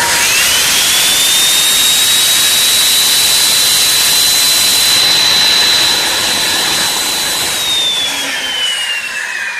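Homemade table saw switched on: the saw motor's whine climbs to full speed within about a second and runs steadily without cutting. From about six seconds in it falls in pitch as the saw is switched off and spins down.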